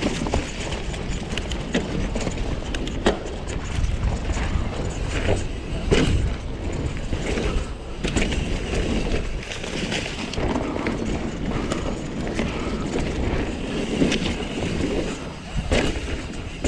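Mountain bike being ridden fast down dirt jumps: steady tyre-on-dirt and wind noise, with sharp knocks and clatter every few seconds.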